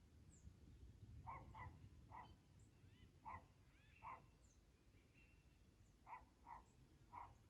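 A dog barking faintly, about eight short barks in irregular ones and pairs, over a low wind rumble, with a few faint high bird chirps.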